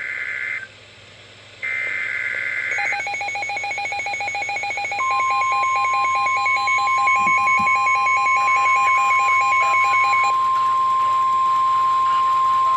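Emergency Alert System SAME header data bursts, two short buzzy screeches about a second apart. They are followed by a fast pulsing electronic alert beep, and from about five seconds in by the steady single-pitch 1050 Hz NOAA Weather Radio warning alarm tone, announcing a severe thunderstorm warning.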